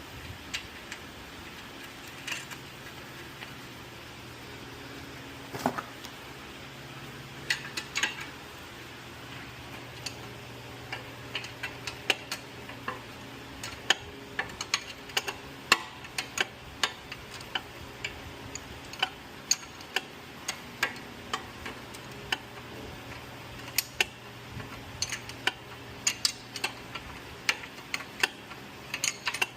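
Ratchet wrench clicking in short irregular runs as the ball joint's nut is tightened onto the lower control arm, the clicks coming more often in the second half.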